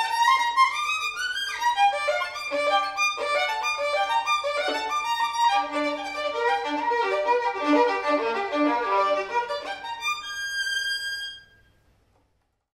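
Solo violin playing a fast étude passage of quick running notes, ending on a held note near the end.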